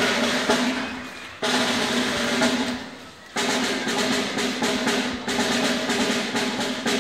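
Drum roll with a held low note, coming in three swells that each start suddenly and die away, as a band piece opens.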